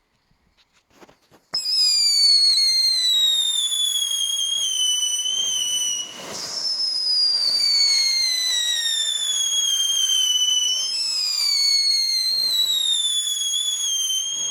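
STING P4008 Keller Bis firework whistling loudly and continuously, starting abruptly about a second and a half in. Its shrill whistle slides slowly down in pitch, then jumps back up twice, about 6 and 11 seconds in, and slides down again each time.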